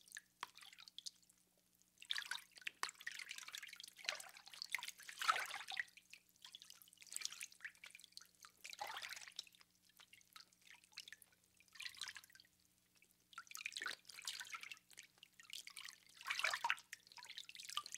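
Bathwater splashing and trickling as a person moves in a bathtub, in irregular bursts with short pauses between them.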